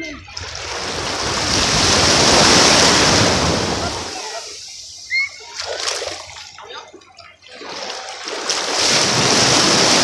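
Small waves breaking and washing up a sandy shore right at the water's edge. One wave builds and washes in over the first few seconds, then after a quieter lull a second wave breaks near the end.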